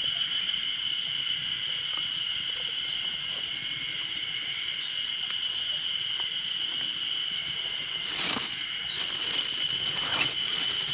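Steady insect song, a high unbroken tone that runs on throughout. About eight seconds in comes a short burst of rustling, followed by more rustling on and off.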